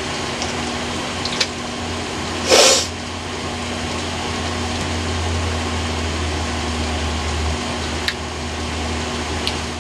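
A steady mechanical hum and whoosh, as from a motor or fan running, with a short louder hiss about two and a half seconds in and a few light clicks.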